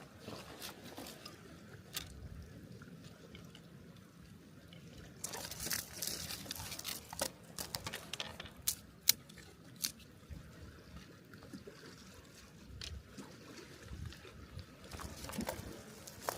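Water trickling and splashing, with a louder rush about five seconds in and a run of sharp clicks and knocks over the next few seconds.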